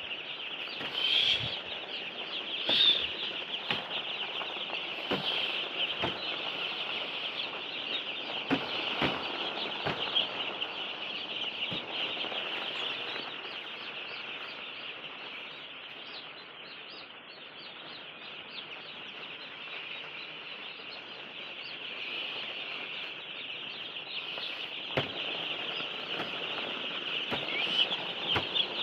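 A large flock of poultry calling all at once in a dense, continuous chatter of high peeps and clucks, with a few short knocks here and there.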